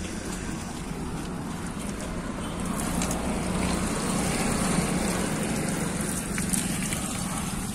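Water running from the plastic tap of a water drum and splashing over hands being washed, over a steady hum of road traffic. The splashing is loudest in the middle.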